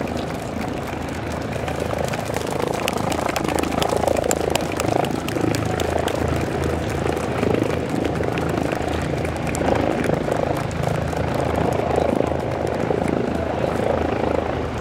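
Steady drone of an aircraft engine running, with a busy mid-range background and scattered sharp ticks.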